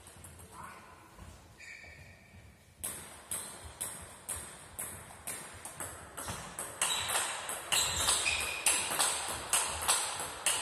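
Table tennis ball knocking back and forth between paddles and table in a rally, about two to three sharp knocks a second with a short ring after each. The knocks start about three seconds in and grow louder towards the end.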